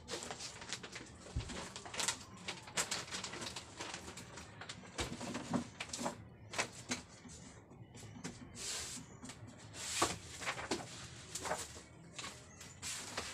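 Small household items being sorted by hand: plastic packaging rustling and crinkling, with irregular light taps and knocks as things are picked up and set down.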